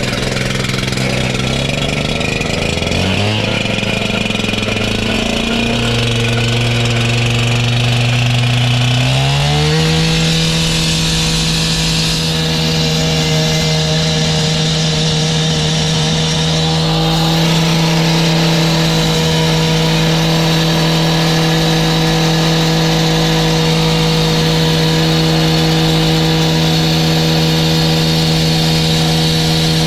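An engine being throttled up in steps over the first ten seconds, then held running steadily at high speed.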